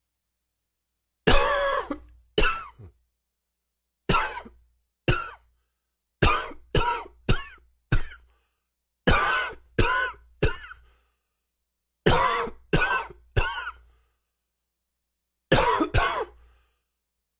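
A man's nagging dry cough, in six short fits of two to four sharp coughs each, with silence between the fits.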